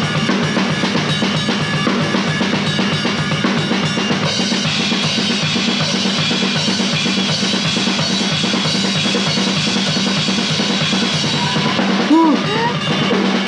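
Drum kit played as a solo, with bass drum, snare and cymbals struck in rapid, continuous strokes. Near the end a short burst of laughter is heard over the drums.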